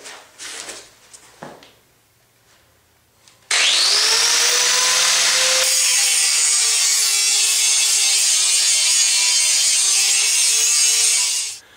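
Hand-held electric grinder switched on about three and a half seconds in, its motor whining up to speed, then grinding down a metal motor-mount plate, its pitch sagging slightly under the load. It cuts off suddenly near the end, after a few light handling knocks before it starts.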